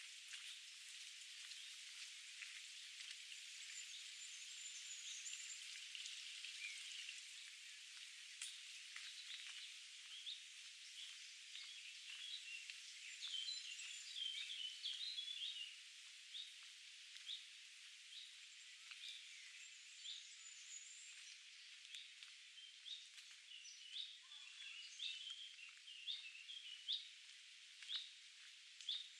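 Faint steady rush of a stream, with small songbirds chirping and singing over it. In the last few seconds, footsteps fall about once a second.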